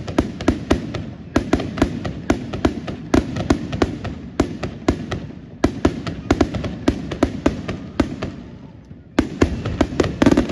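Fireworks crackling: rapid clusters of sharp pops, several a second, broken by short pauses, with a fresh loud cluster near the end.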